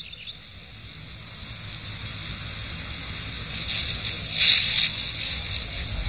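A steady rushing hiss that builds in loudness, swelling to its loudest about four and a half seconds in.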